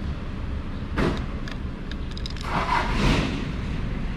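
Plastic knocks and scraping as a Mazda CX-5 side-mirror housing is handled and worked on with a screwdriver to take out its screws: a sharp knock about a second in, then a longer rustling scrape, over a steady low rumble.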